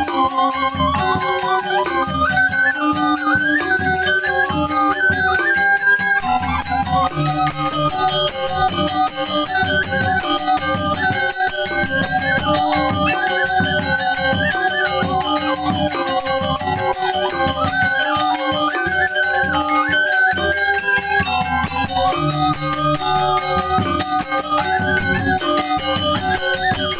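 Balinese gamelan music: a repeating stepped melody over a fast, steady beat.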